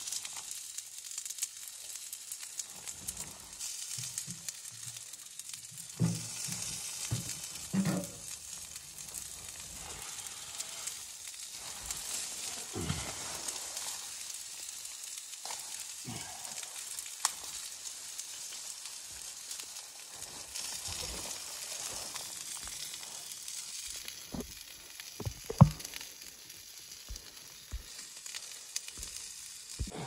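Steady hiss of rain on tent fabric, with bursts of plastic rustling from a rain poncho and a plastic bag being handled, and one sharp knock about 25 seconds in.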